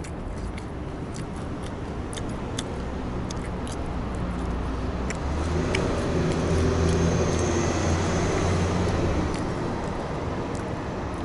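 Low, steady hum of a motor vehicle's engine that grows louder about halfway through and then eases off, with scattered light clicks.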